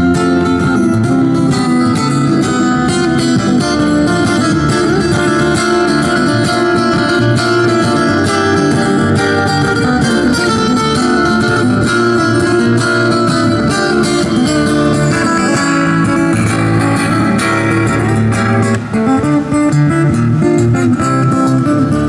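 Takamine acoustic-electric guitar played fingerstyle, amplified through a small Roland amplifier: a fast run of picked melody notes over bass notes, played as an instrumental.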